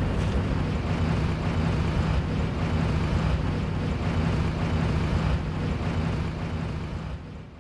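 A vehicle engine running with a steady low rumble, fading out near the end.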